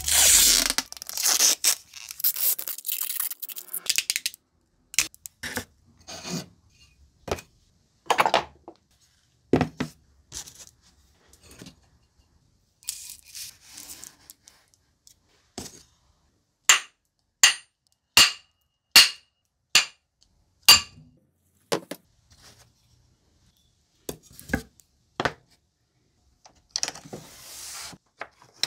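Blue masking tape ripped off the roll and wrapped onto a steel knife blade for about four seconds, followed by scattered handling clicks, a run of about six sharp clinks, and a short rubbing noise near the end.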